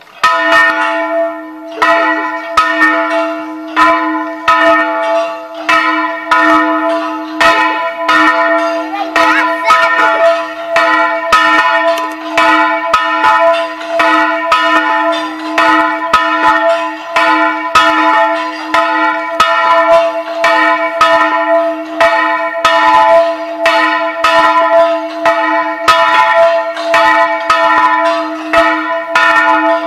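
Church tower bells rung in a quick, steady run of strikes, about two a second, each strike ringing on so that the tones overlap into a sustained hum beneath.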